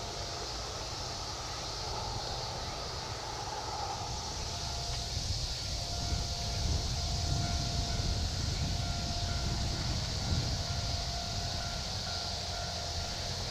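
Keisei 3100-series electric train approaching at a distance on a deadhead run, its low rumble building gradually from about a third of the way in. A faint steady whine runs through it.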